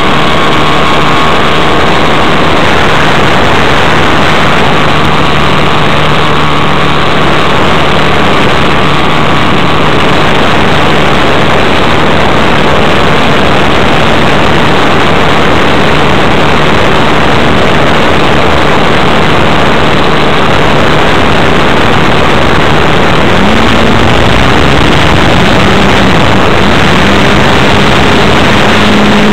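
Model airplane glow engine running very loud and close to the on-board camera, steady at a low idle while it warms up with the glow-plug igniter on. About three-quarters of the way through its pitch steps up, and again a little later, as the throttle is opened.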